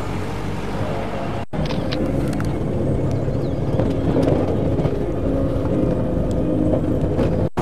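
Vehicle engine and road noise, running steadily as heard from inside a moving vehicle, with two very short dropouts where the recording is cut, one about a second and a half in and one near the end.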